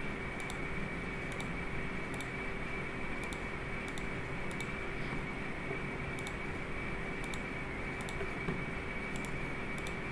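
Scattered faint clicks from a computer mouse and keyboard over a steady background hiss that carries a constant high-pitched tone and a low hum.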